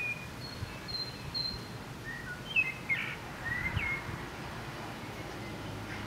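Birds chirping in short, scattered calls and brief whistles over a steady low background rumble of outdoor noise.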